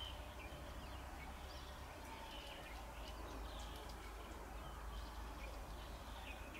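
Faint outdoor ambience: small birds chirping briefly here and there over a steady low rumble.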